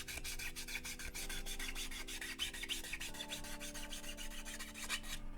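Buffing block rubbing quickly back and forth on the edge of a plastic model-kit part, a fast run of short scratchy strokes as the cut edge is sanded smooth.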